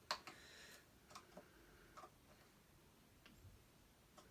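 Faint, scattered clicks and ticks of a screwdriver tightening the screws on a Hoover Junior vacuum's handle, with one sharper click at the very start.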